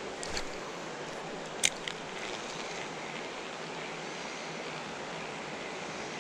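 Steady rushing of creek water, with a few faint clicks early and one sharp click about a second and a half in.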